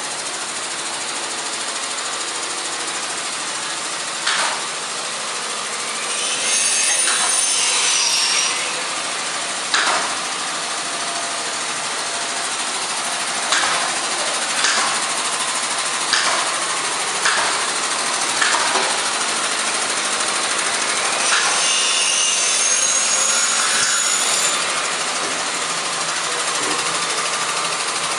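Workshop noise: a steady din with scattered sharp knocks, and two stretches of a few seconds each where a high whine rises over it, about six seconds in and again past twenty seconds.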